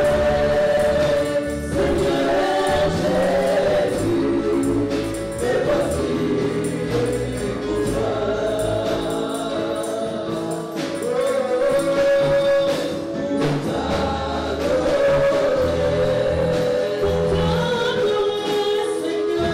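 Gospel choir singing with a band, in a steady rhythm with bass throughout.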